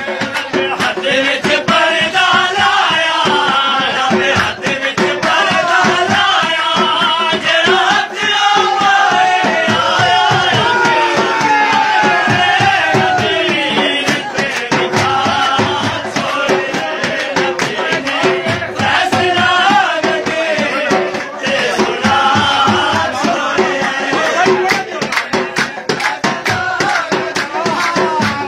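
Dhol drum beaten in a steady, driving rhythm while a group of men sing a devotional chant together.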